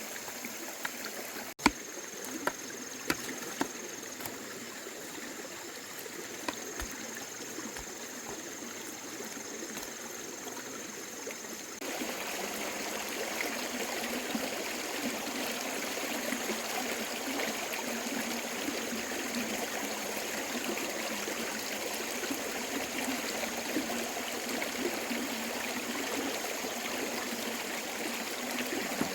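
Steady rushing noise of running water, with a few sharp clicks or knocks in the first few seconds. It grows louder about twelve seconds in.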